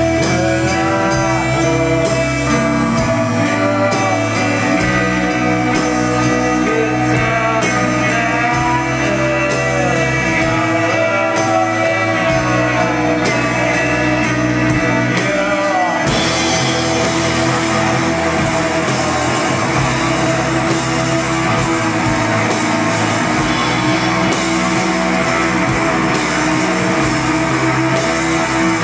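Rock band playing live on electric guitars and drum kit, loud and steady. About sixteen seconds in, the music changes abruptly to a denser, noisier wash of distorted guitar.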